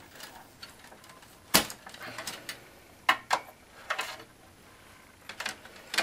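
Hands handling cables and plastic connectors inside a desktop computer case, with irregular clicks and knocks against the sheet-metal chassis: one sharp knock about a second and a half in, then scattered clicks.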